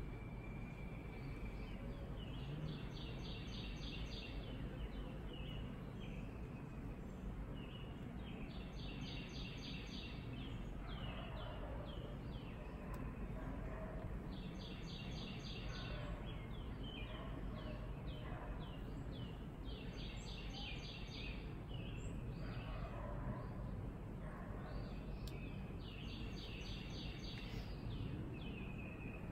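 A songbird in the woods repeating a short high trill five times, about every six seconds, with shorter chirps from birds in between, over steady outdoor background noise.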